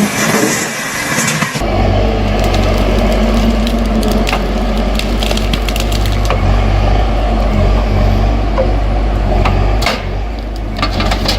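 Small wood chipper running steadily on its engine, with many short cracks and crunches as branches are chewed through it. A different, noisier sound comes before it and gives way about a second and a half in.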